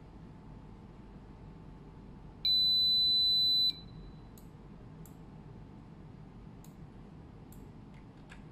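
Brushless DC motor beeping through its windings as the ODESC controller runs motor calibration: one steady high-pitched beep about a second long, starting about two and a half seconds in.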